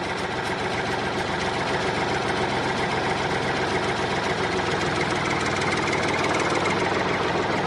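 Small motor of a miniature DIY tractor running steadily with a rapid, even pulse.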